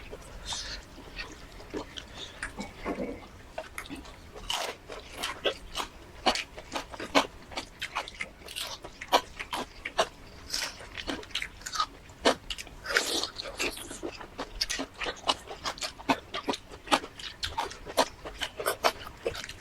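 Close-miked eating, a mukbang: chewing and lip-smacking, heard as a dense, irregular run of sharp clicks.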